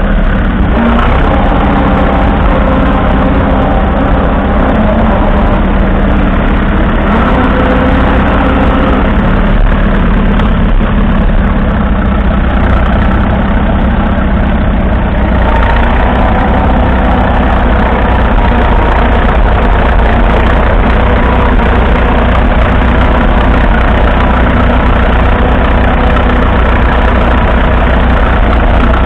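1942 Fordson Model N's 4.4-litre four-cylinder petrol/TVO engine running steadily, close up, its tone getting a little brighter about halfway through.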